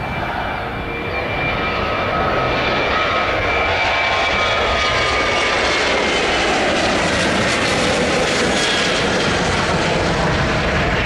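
Boeing 737-700 jet airliner taking off, its CFM56 turbofan engines at takeoff thrust: a steady roar that swells about a second and a half in, with high whining tones that slowly drop in pitch.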